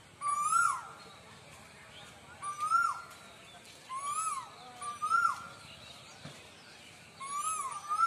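Asian koel, a cuckoo, calling repeatedly: about five loud whistled calls that each rise and then drop sharply, spaced one to two seconds apart.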